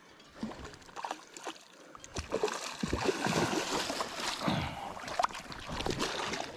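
A hooked fish thrashing and splashing at the surface of shallow creek water, starting about two seconds in and carrying on until it nears the net. A few light knocks come before the splashing.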